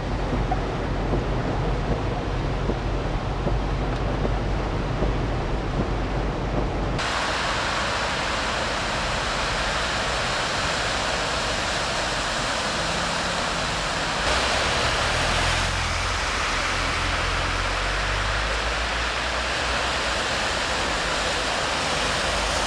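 Low rumbling noise from inside a car wading through floodwater, then about seven seconds in a sudden cut to a steady hiss of rushing, splashing floodwater as cars drive through it.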